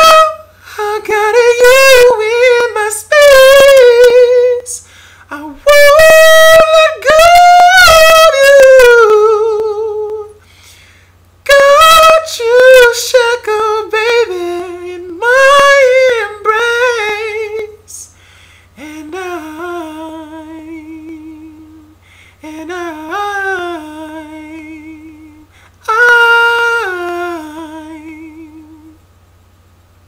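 A man singing unaccompanied in a high register, drawn-out runs that bend up and down and end in vibrato. The first phrases are loud; from about two-thirds of the way through they turn softer and lower.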